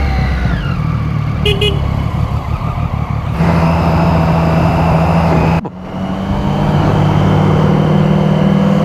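Motorcycle engine heard from onboard while riding, with wind and road noise. The engine note falls in the first second, holds steady, then runs at a higher steady pitch from about three and a half seconds in, with a brief break a couple of seconds later.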